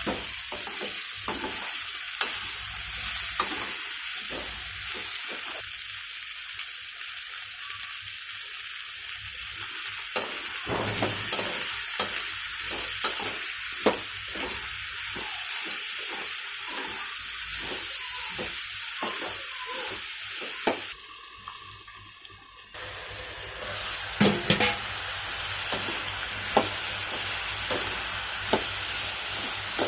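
Sliced ivy gourd (dondakaya) frying in oil in a pan: a steady sizzle, with frequent clicks and scrapes of a spatula stirring it. The sizzle drops away for about two seconds a little past two-thirds of the way through, then resumes.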